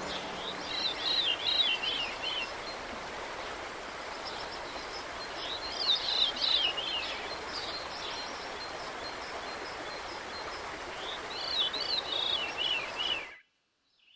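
Steady rush of flowing water with a songbird singing three spells of quick, rapidly repeated up-and-down chirping phrases. The sound cuts off abruptly about a second before the end.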